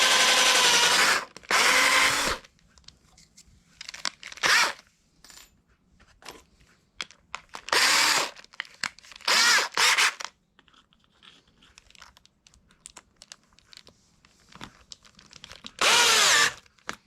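Electric drill run in about six short bursts, its whine speeding up and dropping as the trigger is squeezed and let go, with light clicks of handling between the runs.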